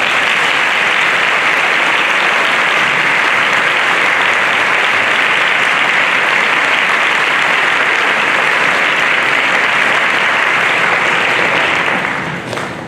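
Audience applauding at the end of an orchestral piece, steady and dense, dying away near the end.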